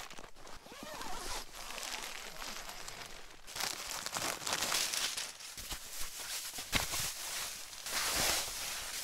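Rustling and crinkling of a reflective insulating pad and tent fabric as the pad is spread out on the tent floor. The rustling gets louder and busier after about three and a half seconds.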